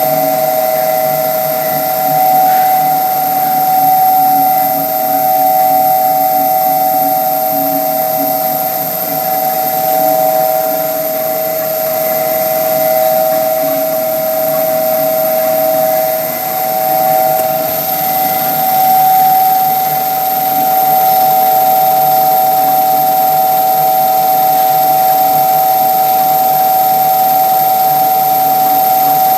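Vacuum atmosphere sintering furnace running: a steady machine hum with a high, constant whine over a hiss, swelling a little at first and then holding even.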